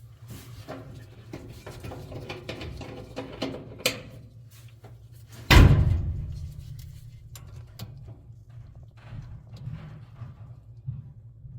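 Scattered clicks and knocks over a steady low hum, then one loud bang about five and a half seconds in that fades out over about a second.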